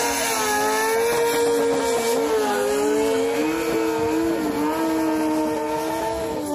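Sport bike engine held at high revs during a rear-tyre burnout, its pitch wavering up and down as the throttle is worked, easing down near the end.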